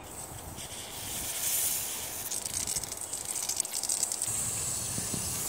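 A Rain Bird pop-up spray head running, water hissing steadily from the nozzle, with a patch of fine spattering about two to four seconds in.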